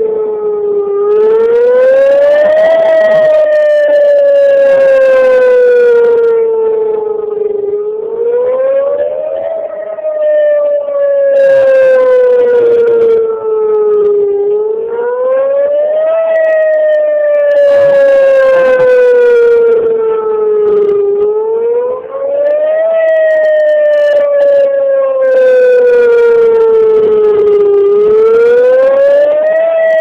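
Whelen 2905 electronic outdoor warning siren sounding its wail tone during a test: the pitch sweeps up quickly and falls away slowly, repeating about every seven seconds.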